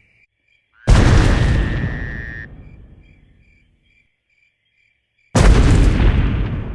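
Two deep, loud booms about four and a half seconds apart, each dying away over a couple of seconds, over a faint cricket chirping steadily about twice a second.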